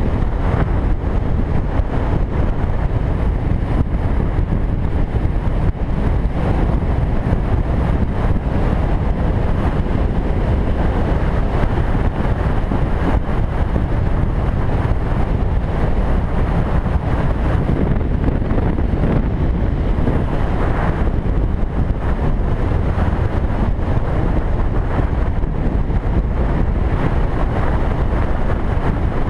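Steady wind rush over the microphone of a moving motorcycle at road speed, with engine and road noise underneath.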